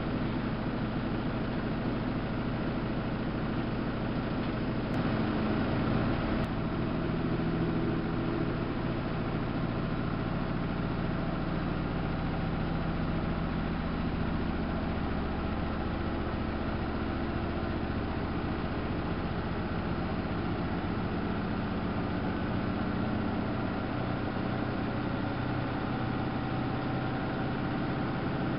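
Samsung WF71284 front-loading washing machine running, a steady machine hum with several held low tones.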